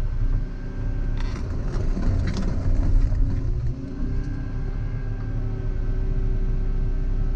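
Volvo EC140EL excavator's diesel engine running steadily under working load, with a burst of scraping and knocking between about one and three seconds in.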